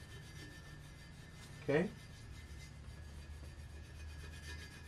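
A plastic scraper rubbing along a painted bicycle frame tube, scraping off decal adhesive softened by a citrus remover. About two seconds in there is one short, loud rising squeak.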